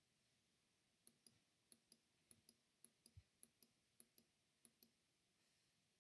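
Faint computer mouse clicks: about eight quick press-and-release double clicks over four seconds, advancing a slideshow one step at a time. There is one soft low thump about three seconds in.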